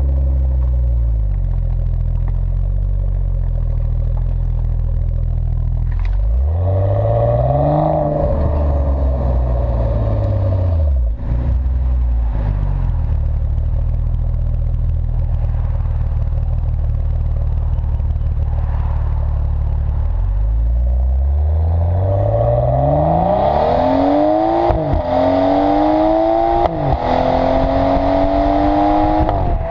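BMW 640i's turbocharged straight-six heard at the tailpipe through an M Performance exhaust. It runs steadily, revs up and falls back about six seconds in, and runs steadily again. From about 21 seconds it pulls hard through the gears: the pitch climbs, drops at two upshifts and climbs again, with rising wind and road noise on top.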